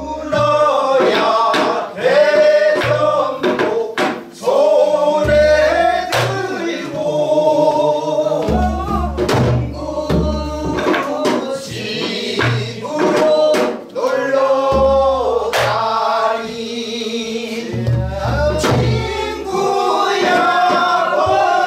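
Mixed men's and women's chorus singing a Korean folk song in unison, accompanied by janggu drum strokes that mark the rhythm.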